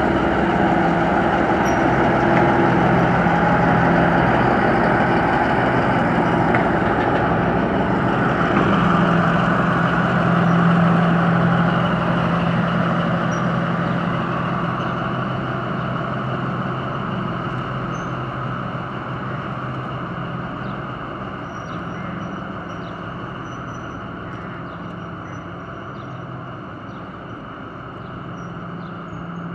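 Diesel shunting locomotive engine running with a steady low note, growing gradually fainter over the second half.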